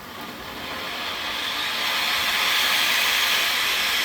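T-Sky Legend of Heroes firework fountain burning, a steady spraying hiss that builds over the first two seconds and then holds.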